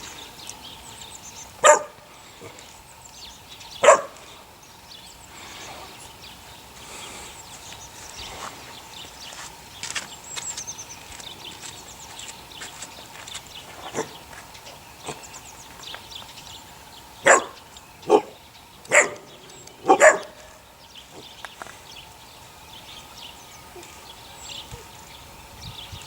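A dog barking in short, sharp single barks: two about two seconds apart near the start, then four in quick succession about two-thirds of the way through.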